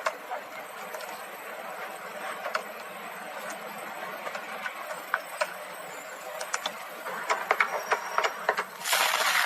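Slime being squished and poked by hand, with scattered small clicking pops that come faster near the end and a louder crackling squish at the very end.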